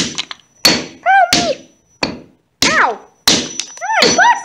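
A hammer strikes small pieces of wood on a concrete floor in about six sharp whacks, roughly two-thirds of a second apart. Between the strikes there are wordless, sliding vocal sounds.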